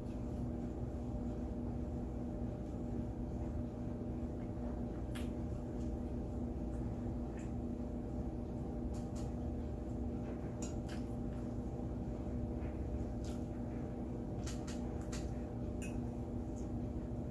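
Close-up eating sounds of someone chewing steak: scattered small wet clicks and smacks, over a steady low hum.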